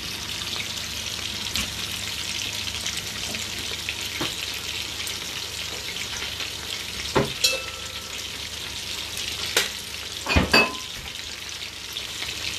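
Chicken pieces frying in oil in a frying pan, a steady sizzle, with the chicken giving off a lot of water. A few sharp knocks land about seven and ten seconds in.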